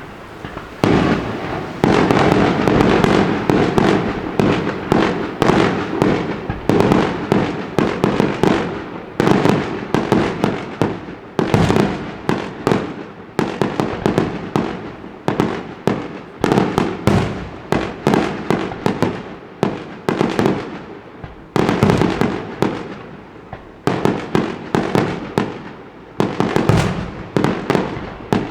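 Fireworks display going off in dense volleys: rapid bangs and crackles, many per second, with a few brief lulls between salvos.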